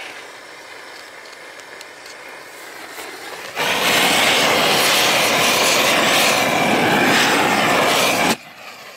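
Gas torch heating torch-on bitumen felt: a loud, steady rushing noise that starts suddenly about three and a half seconds in and cuts off suddenly about five seconds later, with only a quieter background before it.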